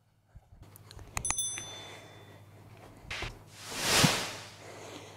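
Subscribe-button sound effect: a click and a bright bell ding that rings out for under a second, followed by a whoosh that swells and fades around four seconds in.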